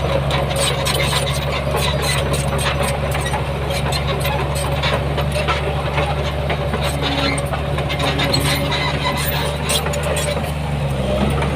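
Heavy earthmoving machine's diesel engine running steadily, with a steady whine above it and frequent light clanks and clicks throughout; the engine note shifts slightly near the end.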